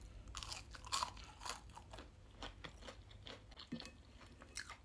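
A person chewing crunchy oven-cooked food close to the microphone: a run of irregular crisp crunches, densest in the first second and a half.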